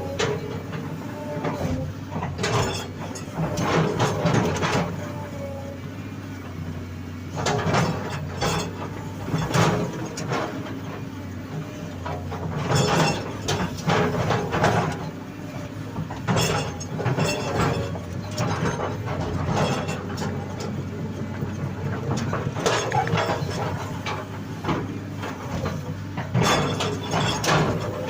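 Sany hydraulic excavator's diesel engine running steadily, with repeated bouts of metallic clanking and scraping every couple of seconds as the bucket and arm work.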